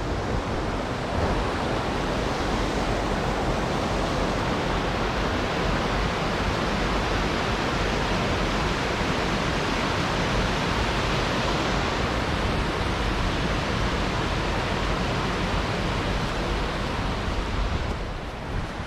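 Waterfall and creek water rushing: a steady, even roar of falling water that eases off about a second before the end.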